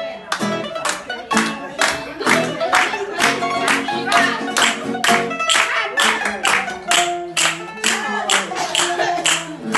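Mandolin and acoustic guitar playing a lively strummed tune, with women singing and hands clapping on the beat, about two strokes a second.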